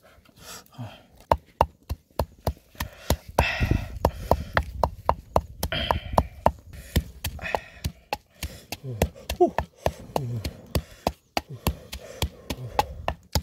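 Wooden pestle pounding chilies and salt in a mortar: a steady run of sharp knocks, about three a second.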